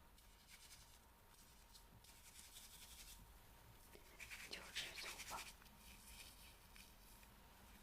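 Faint scratching and rubbing close to the microphone, typical of an ASMR ear-cleaning tool working on an ear microphone, with a louder spell of scratches about halfway through.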